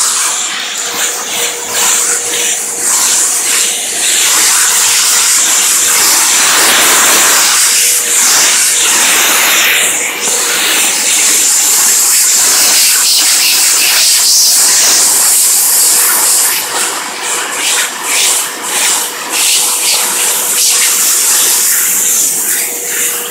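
Stand-up vacuum cleaner running steadily, its suction drawn over a pecky cypress board to clean out dust and loose debris from the pecks. The suction sound wavers and dips repeatedly in the last several seconds as it is moved along the board.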